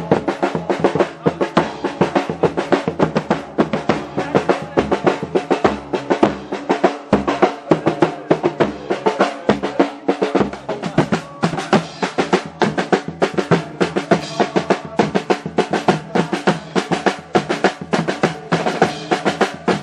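Several marching drums played together in a fast, steady rhythm: large bass drums struck with felt-headed mallets and snare drums rattling between the beats.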